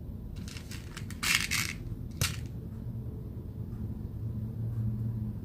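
Small beads being handled as one is picked up: a brief rustling clatter about a second in, then a single sharp click, over a low steady hum.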